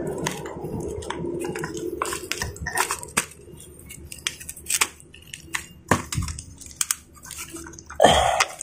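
Irregular metal clicks and scrapes as a flathead screwdriver pries at a drive-shaft CV joint and the joint's parts are worked apart by hand, with a louder knock about eight seconds in.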